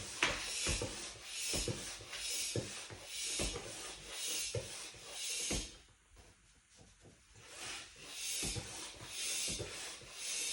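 A tire pump working in steady strokes of air, about one a second, filling an inner tube, with a short break about six seconds in before the strokes resume.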